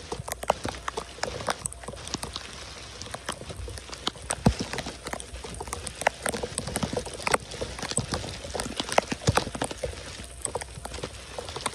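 Heavy rain falling on a flooded street, with many sharp, irregular taps of drops striking close by.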